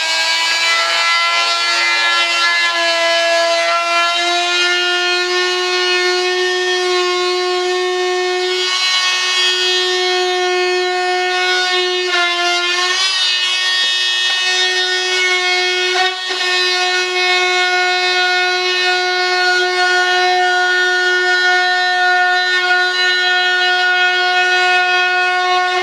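Handheld electric rotary tool running at a steady high whine as it cuts into the fibreglass composite wing skin, the pitch sagging briefly a few times about halfway through as the bit bites under load.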